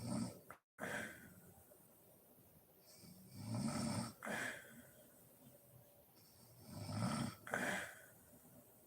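A sleeping woman snoring: three rough snores about three and a half seconds apart, each in two quick parts, with quiet breathing between.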